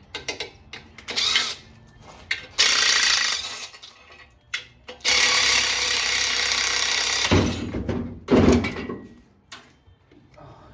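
A power tool running in two steady hissing runs, the first under a second long and the second about two seconds, with a few knocks and a heavier low clatter near the end.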